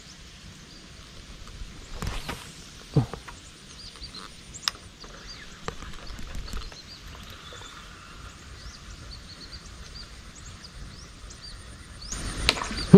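Outdoor wetland ambience: scattered faint bird chirps over a steady, thin, high-pitched whine, with a few short knocks in the first five seconds and a brief rustle near the end.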